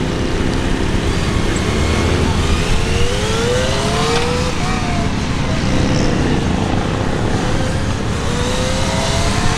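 Kawasaki ZX-25R's 250 cc inline-four engine revving up as the bike accelerates, its pitch climbing about three seconds in and again near the end, over a steady low rush of noise.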